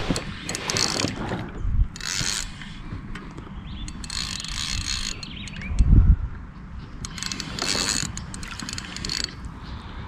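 Spinning fishing reel being cranked in several bursts of about a second each, its gears and line roller whirring. A heavy low knock about six seconds in is the loudest sound.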